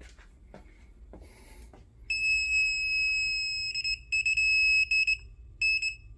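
K68+ anti-spy bug detector's alarm going off as it picks up the router's radio signal. A loud, high-pitched steady tone starts about two seconds in and holds for over a second, then breaks up into a string of short, stuttering beeps.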